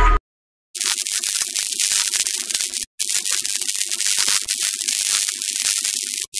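Electric sparking sound effect: a dense, hissing crackle that starts about half a second in, drops out briefly near the middle and again near the end.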